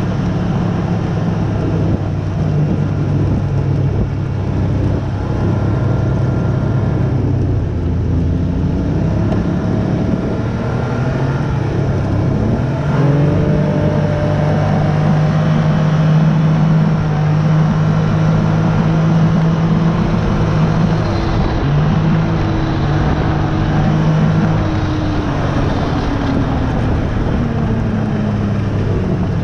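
Snowmobile engine running under way, with track and wind noise around it. Its pitch climbs as it speeds up about twelve seconds in, holds steady, then falls gradually near the end as it slows.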